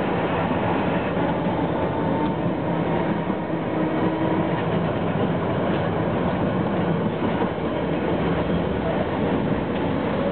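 Tram running along street track: a steady rumble of steel wheels on the rails, heard from inside the car.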